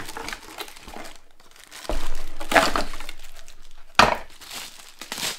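Cardboard box flaps and plastic bag packaging rustling and crinkling as parts are unpacked by hand, with one sharp knock about four seconds in.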